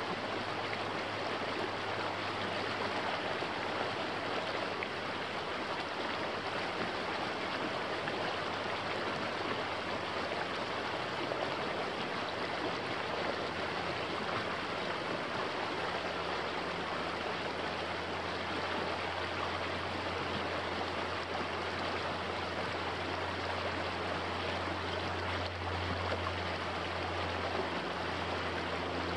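Small creek running over rocks in a shallow riffle: a steady, even rush of water.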